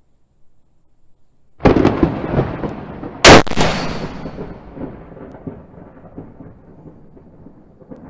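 A single sharp, very loud rifle shot from a Savage 110E in .270 Winchester about three seconds in, echoing away. A loud rumbling boom starts about a second and a half in, just before the shot, and rolls on under it.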